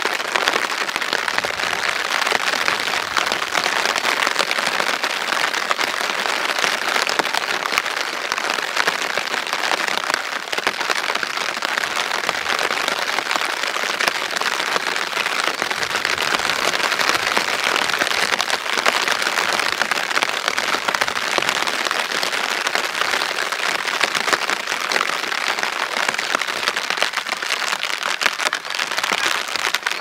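Steady rain falling: a dense, even hiss flecked with fine crackling drop impacts.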